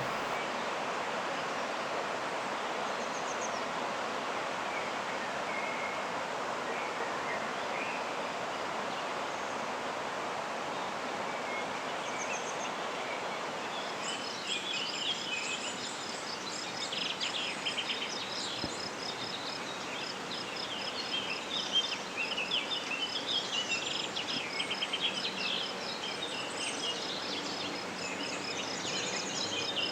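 Steady background noise, then from about halfway on, small birds chirping here and there over a fast, even, high-pitched ticking trill.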